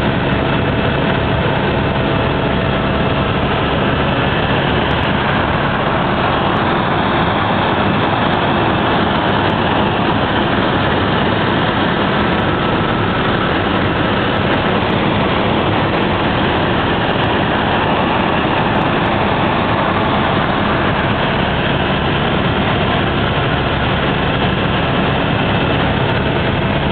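Helicopter engine and rotor noise heard from inside the cabin in flight: a loud, unchanging drone with a constant low hum beneath it.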